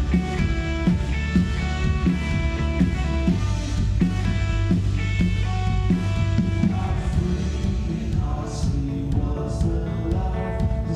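A live worship band plays a song, with a drum kit keeping a steady beat under sustained instrumental notes.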